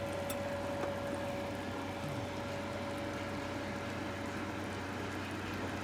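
Steady motor hum with a constant whine, as from a running appliance fan.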